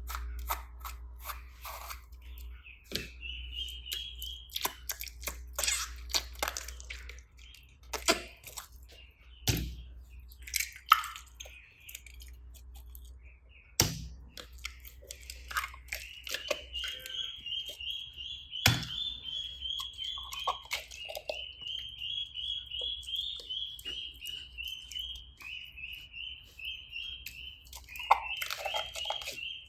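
Slime being squeezed, poked and mixed by hand, with sticky crackling, clicks and occasional louder pops, while a high repeated chirping runs behind it.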